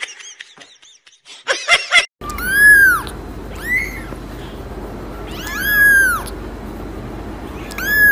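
Young kitten mewing: four short, high mews, each rising then falling in pitch, one to two seconds apart.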